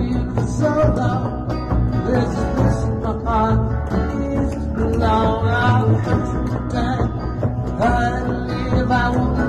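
Live Celtic folk band playing: acoustic guitar strummed under a wavering melody line, with no break.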